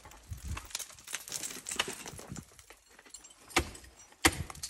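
Ice-climbing hardware clinking and scraping, with two sharp strikes into the ice near the end, a little over half a second apart.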